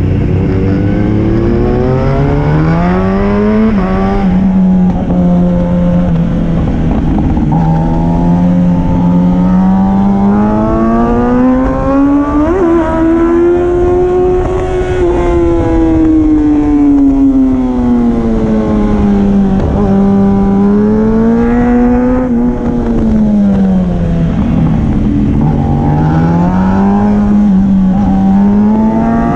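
Sport motorcycle engine heard from a helmet-mounted camera, revving up through the gears with quick drops in pitch at the shifts, then easing off and pulling again several times. Wind rushes over the microphone throughout.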